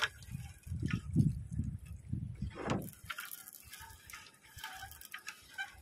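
Fishing net hauled in over the side of an outrigger boat and picked by hand: low, uneven knocks and rumbles in the first half, then lighter rustling and clicks.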